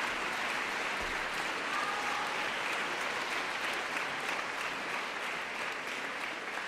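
Audience applauding steadily in a concert hall, the clapping easing slightly near the end.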